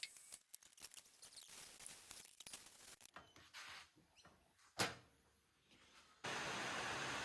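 Metal workshop handling: light taps and clicks, then a single sharp knock about five seconds in. Near the end a steady, even hiss starts abruptly and is the loudest sound.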